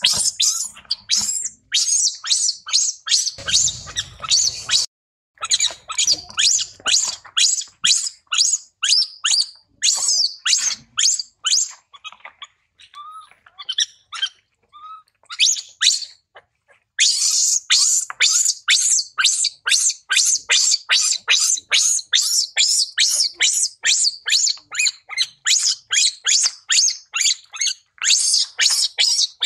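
Baby macaque squealing over and over in short, high-pitched cries, about three to four a second. The cries thin out to a few scattered lower squeaks midway, then pick up again at the same fast rate.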